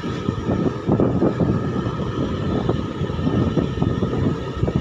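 Wind buffeting the microphone of a moving motorcycle, with the bike's engine and road noise rumbling underneath.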